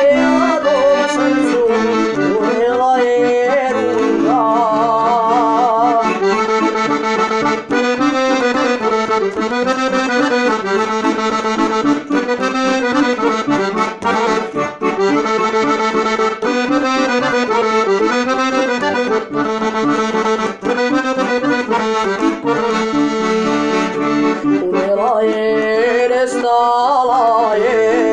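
Stradella Musette piano accordion playing a Bosnian sevdalinka melody on the right-hand keyboard, with ornamented, wavering notes over a steady bass-and-chord accompaniment.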